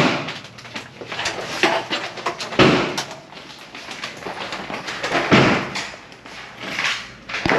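A series of loud, sharp thuds about two to three seconds apart, with some lighter knocks between them.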